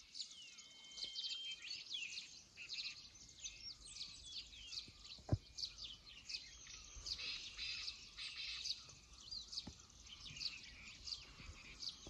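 A faint dawn chorus of small birds, with many quick high chirps and short whistles overlapping throughout. A single sharp click comes about five seconds in.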